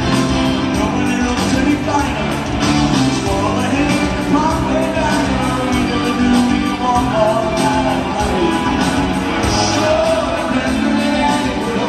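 Live rock band with grand piano playing with a steady beat, with a singing voice, heard from the arena seats with the hall's echo.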